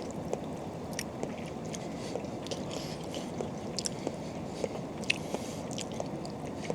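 Eating sounds: chewing noodles, with scattered small smacks and clicks over a steady low background hum.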